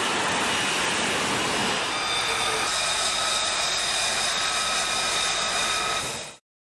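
F-35B fighter's jet engine running: a steady roar, with a high turbine whine joining it about two seconds in. The sound cuts off suddenly near the end.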